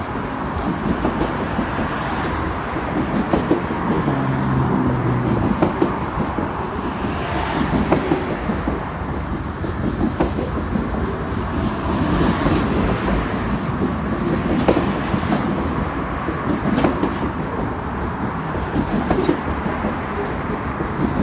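Freight train cars rolling past: a steady rumble of steel wheels on rail with irregular clicks and clacks as the wheels cross rail joints.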